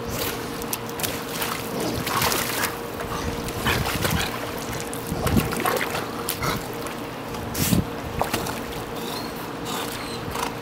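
Pool water splashing and sloshing as several golden retrievers paddle and swim, with irregular louder splashes about five and eight seconds in, over a faint steady hum.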